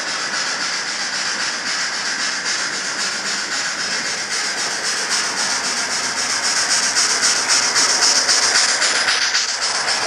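Model steam locomotive with a LokSound sound decoder, giving a steady rhythmic chuffing and hiss from its on-board speaker over the running of its wheels on the rails. It grows louder about seven seconds in as the train draws near.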